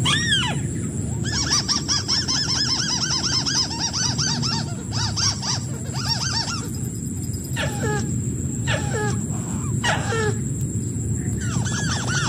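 White-browed crake calls: fast series of repeated nasal arched notes, about five a second, broken by short pauses, with a few shorter downward-sliding notes past the middle. A steady high-pitched whine and a low rumble run underneath.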